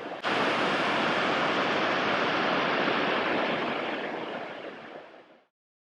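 Waterfall rushing in a steady roar of water. It steps up louder just after the start, then fades out to silence a little over five seconds in.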